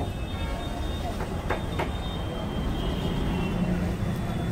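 A knife blade clicks twice against the iron griddle while a rolled egg dosa is cut into pieces, over a steady low rumble of background noise.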